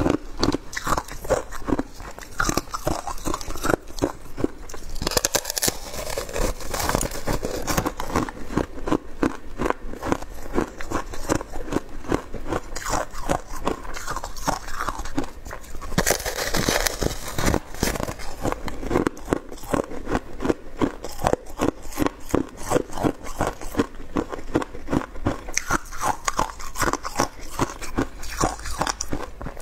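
Shaved ice being bitten and chewed: a rapid, continuous run of small crunches with no pause.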